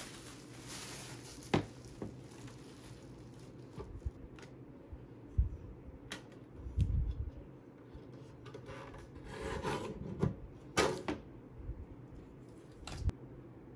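ISDIR guillotine paper cutter being unwrapped and tried out: plastic wrap rustling, the metal cutting arm and base knocking and clicking as they are handled, and a longer scraping slice through paper about two-thirds of the way in, followed by a sharp knock.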